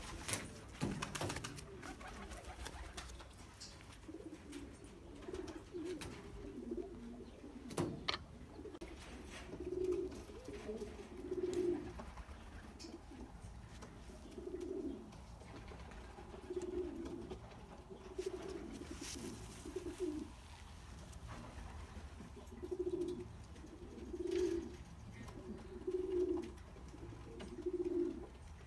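Racing pigeons cooing, low coos repeating every couple of seconds, with a few sharp clicks in between.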